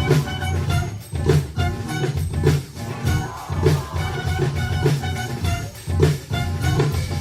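Dance track with a heavy bass line and a steady drum beat, horn-like parts on top.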